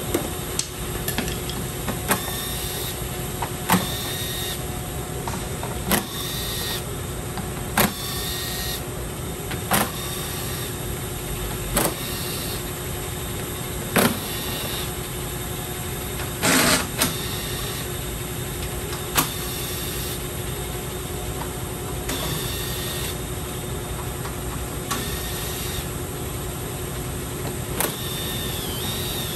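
Cordless power tool whirring in short bursts as it backs the 10 mm bolts out of the plastic lower engine cover, with sharp clicks and knocks of the tool and bolts every couple of seconds. A steady hum runs underneath.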